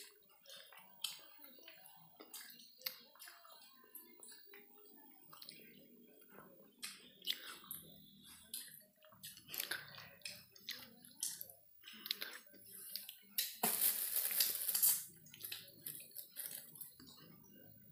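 Close eating sounds from someone eating rice cake by hand: chewing, wet mouth and finger-licking clicks, and light rustling of a banana-leaf wrapper. About three-quarters of the way through, a louder rustle lasts about a second.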